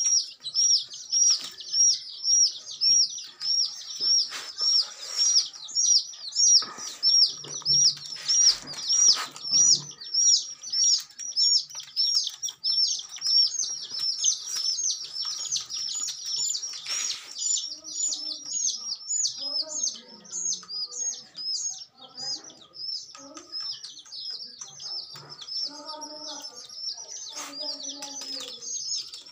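A flock of domestic chicks peeping without pause: high, short chirps repeated several times a second, overlapping, loudest in the first half and a little fainter later.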